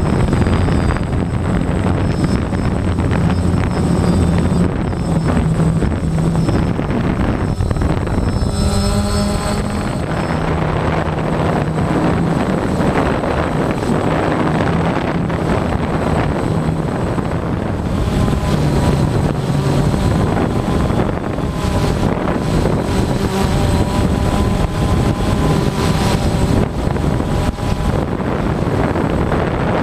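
A camera drone's rotors whir steadily and loudly, recorded up close. The pitch of the motor tones shifts a few times.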